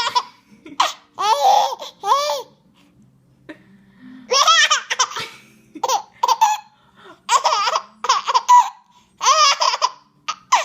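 Baby boy laughing hard in repeated high-pitched bursts with short pauses between them, cracking up at pretend sneezes. There is a longer lull about three to four seconds in.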